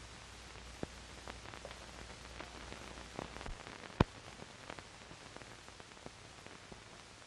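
Surface hiss and crackle of an old optical film soundtrack: steady hiss with scattered light clicks and one sharp pop about four seconds in.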